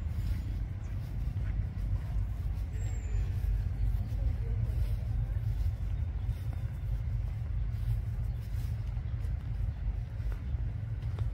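Steady low outdoor rumble, with faint footsteps on a gravel path.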